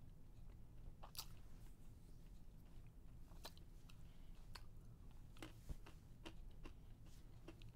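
Near silence: a faint low rumble with scattered soft clicks and crackles, about a dozen over several seconds.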